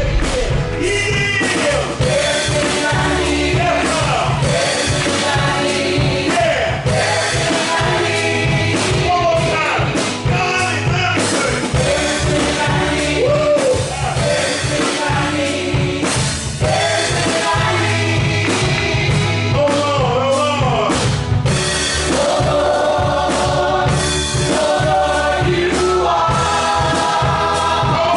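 Gospel music: voices singing over a full band with a steady beat.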